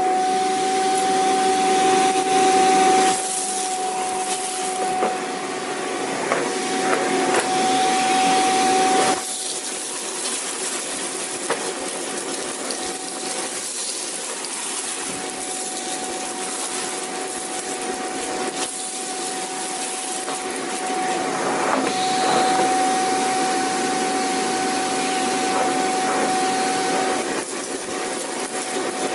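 Vacuum cleaner running steadily: a continuous whoosh of air with a thin whine on top. The whine fades and the running dips in level about nine seconds in, then both come back up near the end.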